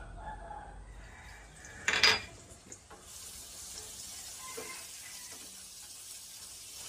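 Food sizzling as it fries in a metal pan on a gas stove, stirred with a wooden spatula, from about three seconds in. A brief loud noise comes about two seconds in.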